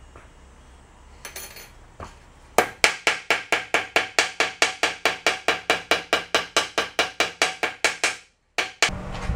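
Small ball-peen hammer tapping a soft-metal bearing seal ring against a steel bench top: after a few light clinks, a fast, even run of sharp metallic taps, about five a second, for some five seconds. A steady low hum comes in near the end.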